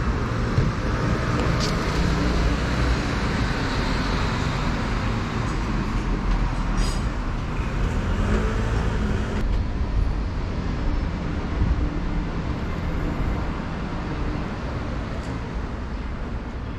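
City street traffic noise: a steady rumble of cars on a busy road.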